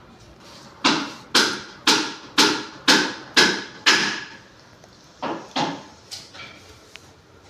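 Hammer blows struck in a steady rhythm, seven in a row about two a second, each with a short ring. After a brief pause come three lighter blows.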